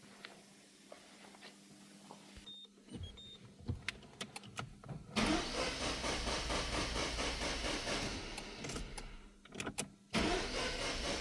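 A few short high beeps and clicks, then about five seconds in a Peugeot's starter motor cranks the engine steadily. It stops briefly near the end and then cranks again. This is the no-start condition the title ties to fault code P0341, a camshaft position sensor fault.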